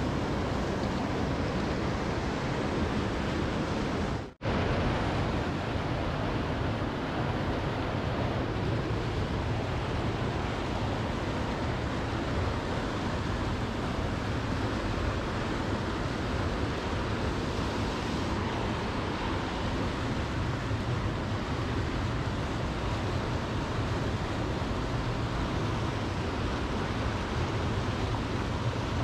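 Steady rush of flowing river water running through rapids, cut off for an instant about four seconds in.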